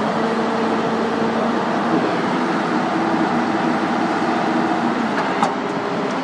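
Kato crane truck's diesel engine running steadily, a few even tones in its sound shifting slightly in pitch over the seconds. A single sharp click sounds near the end.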